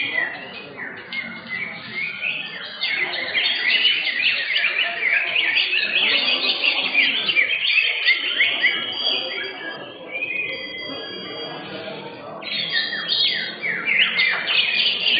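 Several caged cucak hijau (green leafbirds) singing at once in contest: a dense, continuous run of quick chirps and falling whistles. It thins out about ten seconds in and grows busy again near the end.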